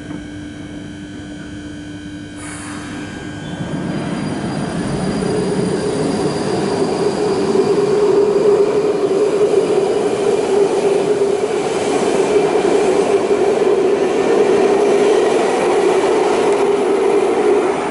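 London Underground 1995-stock Northern line train pulling out of the platform and picking up speed. The running noise of wheels and motors builds from about three seconds in, and a steady mid-pitched tone holds as the train leaves.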